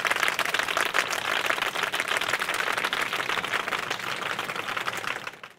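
Applause: many hands clapping in a dense, even patter that fades away near the end.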